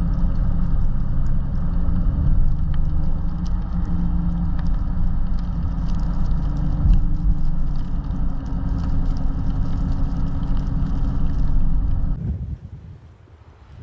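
Car driving along a snowy road: a steady low rumble of engine and tyres with faint scattered ticks, which falls away abruptly near the end.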